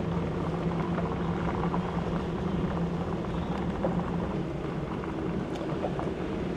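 Truck engine running steadily at low speed with a constant low drone, heard from inside the cab, while the tyres roll over a gravel road with faint scattered ticks.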